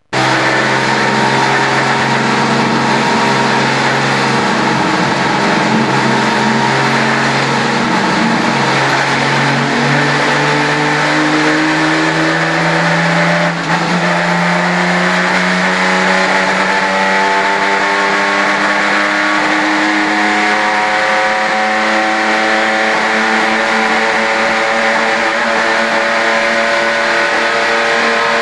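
Holden HQ race car's six-cylinder engine heard from inside the cabin, running hard at high revs. Its pitch climbs slowly for several seconds and then holds steady, with a brief dip in level about halfway through.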